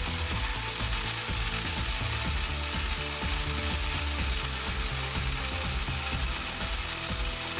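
Drivetrain of a 3D-printed PLA RC crawler running: a small electric motor spinning plastic drive shafts, universal joints, gearbox and axles, giving a steady rattling, clicking gear noise. The rear axle lags in this run, which the builder puts down to the steep angle between its mounting and the gearbox drive shaft.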